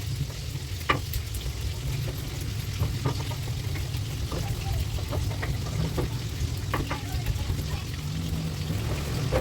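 Food frying and sizzling in a pan while being stirred, with scattered clicks of the utensil against the pan over a steady low rumble.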